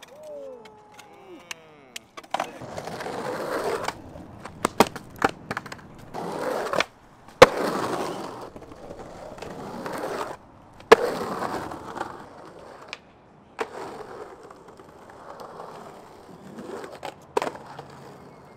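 Skateboard wheels rolling over rough concrete, broken by several sharp clacks of the board's tail popping and landing, the loudest about seven and eleven seconds in.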